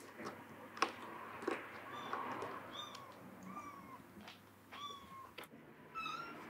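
A young kitten mewing: about six short, high-pitched cries, with a few sharp clicks between them.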